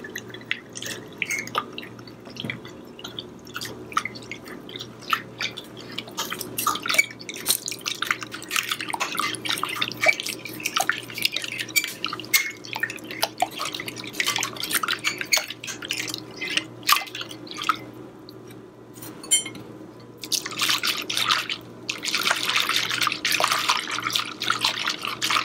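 Metal whisk beating tempura batter in a glass bowl: irregular clicks and taps of the wires against the glass, turning into quicker, denser whisking with a scratchy swish for the last few seconds.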